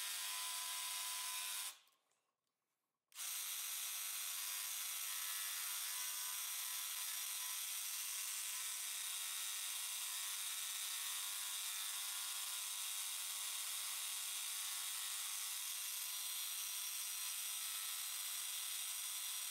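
DeWalt jigsaw running steadily as it cuts a cope in the end of a baseboard held in a Speed Cope coping jig. The sound cuts out about two seconds in and comes back a second and a half later.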